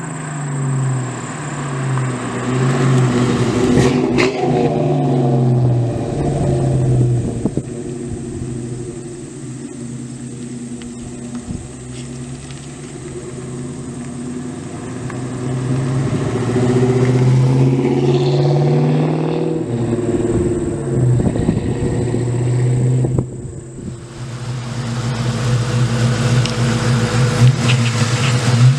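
2001 Ford Mustang Bullitt's V8 accelerating and easing off, its exhaust note rising and falling in pitch several times, with a short drop in level about 23 seconds in. The exhaust runs through an H-pipe and Jones Full Boar Deflector Two chambered mufflers with the electric cutouts closed.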